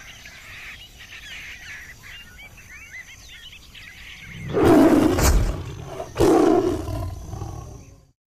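A lion roars twice, two loud, deep calls about a second and a half each, starting about four seconds in. Before them birds chirp faintly.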